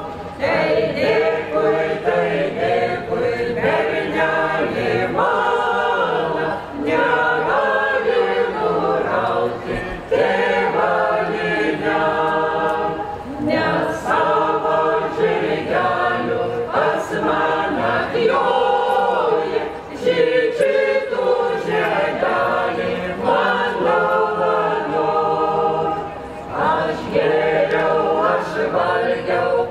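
A folk vocal ensemble singing together, several voices in long sung phrases with brief breaks between them.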